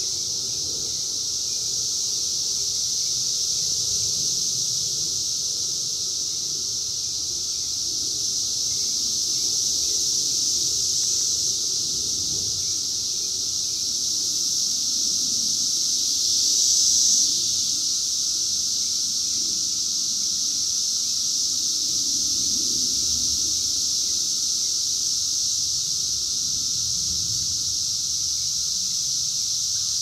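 Chorus of Brood X 17-year periodical cicadas (Magicicada): a steady, high-pitched buzzing drone that swells briefly about 16 seconds in.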